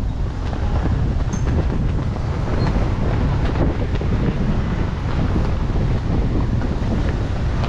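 Wind rumbling on the microphone, a steady low buffeting with outdoor street noise beneath it.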